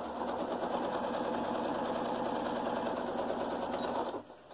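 Janome Memory Craft 6600 computerized sewing machine stitching steadily at an even speed, then stopping about four seconds in.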